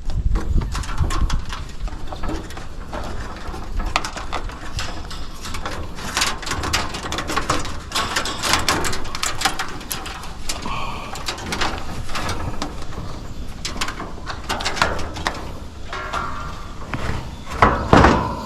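Hands working wiring inside a heat pump's cabinet: many small scrapes, rustles and clicks as the replacement defrost sensor wire is fished through.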